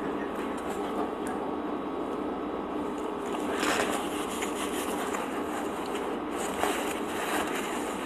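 Close-up eating sounds of someone tearing and chewing soft French bread, small wet clicks of the mouth, over a steady background hum. A brief louder noise comes about three and a half seconds in.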